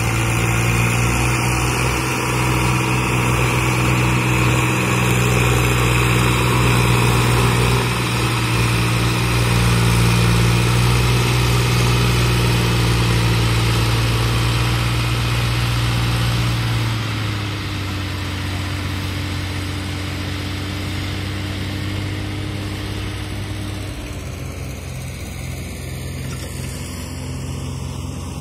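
Diesel tractor engine running under load, pulling a loaded trailer through soft mud. About two-thirds of the way through, the engine note steps down and the sound gets a little quieter.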